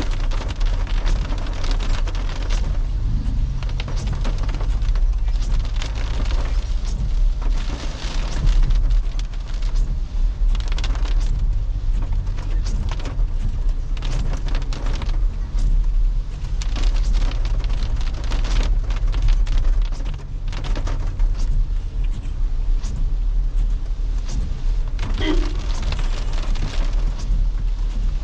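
Toyota Innova Crysta on the move: a steady low rumble of engine, road and wind noise, with frequent sharp crackles and taps.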